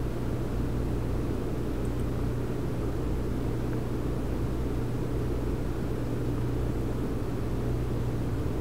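Steady low electrical hum with a rushing, fan-like noise beneath it, unchanging.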